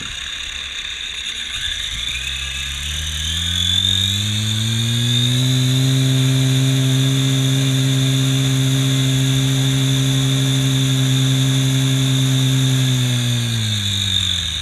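Small toy quadcopter's micro motors and propellers whirring: they spin up over a couple of seconds, run steadily at around 5,000 rpm with a high motor whine on top, and wind down again near the end.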